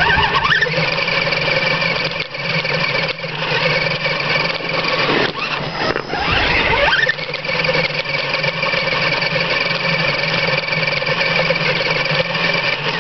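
Electric RC rock crawler's motor and gear train whining steadily. The pitch sweeps up and down briefly around the middle as the throttle changes.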